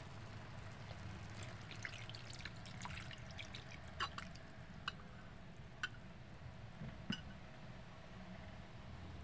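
Liquid in a cooking pot of chicken curry: a scatter of small drips and pops. They come thickly for a couple of seconds, then as a few single ones, over a faint low steady hum.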